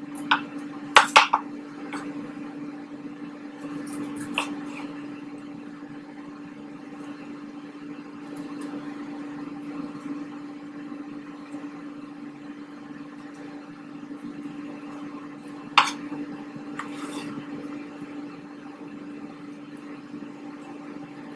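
Knife tapping and scraping on a wooden cutting board while roasted chiles are seeded and stemmed, with a few sharp taps, a quick cluster about a second in and the loudest one near the end. Under it runs a steady, even hum from a running kitchen appliance.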